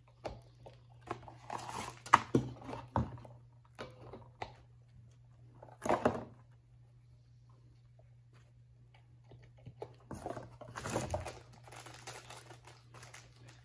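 Hands handling a paper cartridge oil filter element in its metal housing and a cardboard filter box: scattered rustles and taps, a sharp click about two seconds in, a short rustle about six seconds in, and a longer stretch of rustling near the end.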